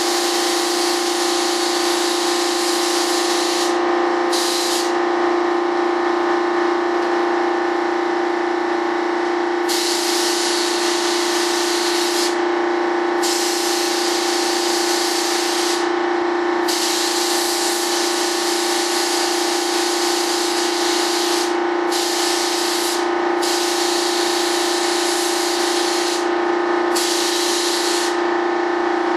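Spray gun hissing in spurts of one to a few seconds with short breaks as the trigger is pulled and let go, laying thin coats of mold release over waxed mold parts. A steady machine hum runs underneath.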